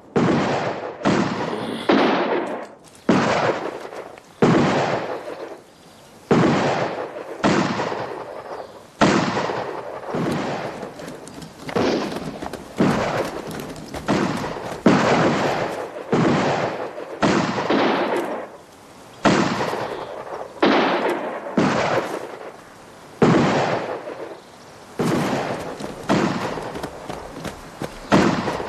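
Gunfire in a shootout: a steady run of single gunshots, about one a second, each trailing off in an echo.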